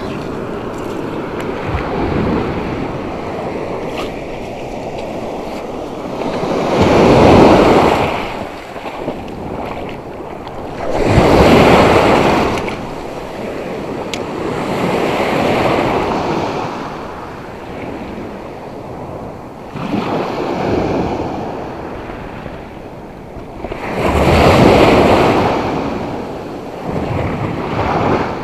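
Sea surf breaking and washing up a shell-covered beach, surging in about every four to five seconds, with wind buffeting the microphone.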